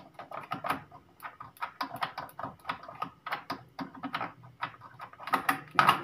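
Rapid, irregular plastic clicking from an Epson L120 printer's gear train as its white gear is turned by hand to move the print head carriage.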